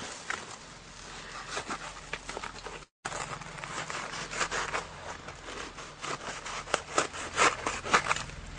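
Irregular scraping and rustling strokes of a blade cutting holes in a large white sheet of material as it is handled, growing louder and quicker near the end. The sound cuts out completely for a moment about three seconds in.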